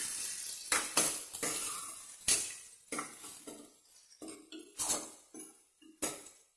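A spatula clinking and knocking against a pan as chopped onions and green chillies are stirred in hot oil, several irregular strikes, over a frying sizzle that fades away in the first couple of seconds.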